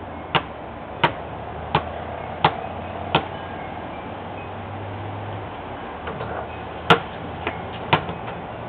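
Basketball bounced on a concrete slab: five evenly spaced bounces about two-thirds of a second apart, a pause of a few seconds, then three more bounces near the end, the first of these the loudest.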